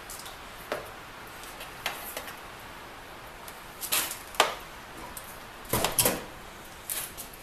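Scattered light clicks and knocks, about ten of them at uneven gaps, over a faint steady hiss; the loudest are a close pair about six seconds in.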